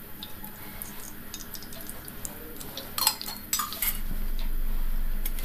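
Cookware handling while ghee is poured into a pan of hot oil: faint small ticks, then two sharp clinks about three seconds in, after which a low steady hum sets in.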